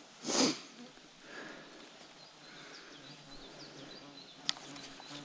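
An insect buzzing close by, a steady low drone that sets in about halfway through, over faint bird chirps. A short hiss comes near the start and a single sharp click near the end.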